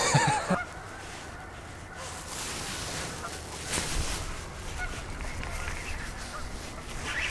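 Geese honking, loudest in a burst at the very start, then scattered fainter honks over a steady background hiss.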